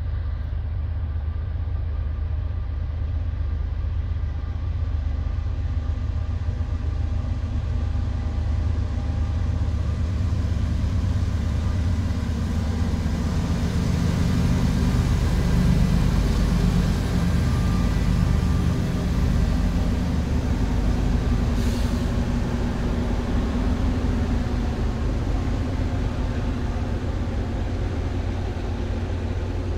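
Norfolk Southern diesel locomotive and train passing, a steady low rumble that grows louder and brighter toward the middle as the locomotive nears, with one sharp clank a little past the middle.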